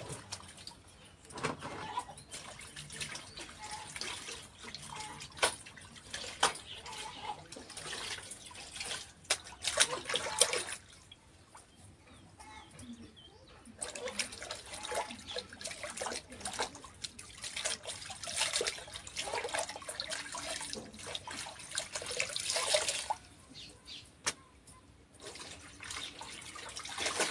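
Clothes being washed by hand in plastic tubs of soapy water: irregular sloshing and splashing, with scattered sharp knocks against the tubs.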